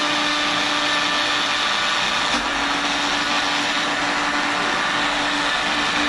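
Electric countertop blender motor running steadily, grinding soaked beans, onion and chilli into a thick batter: a loud, unbroken whir with a steady hum.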